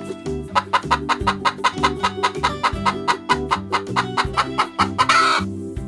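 Hen clucking in a rapid run of short calls, about seven a second, ending in a louder, noisier call about five seconds in, over a steady background music track.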